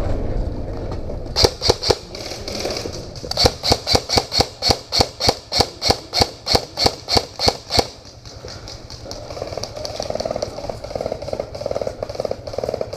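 Airsoft electric gun (AEG) firing a fast string of single shots, about four a second, after a few opening shots. The shooting stops about eight seconds in.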